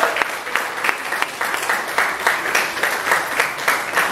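Audience applauding: a steady run of many hand claps.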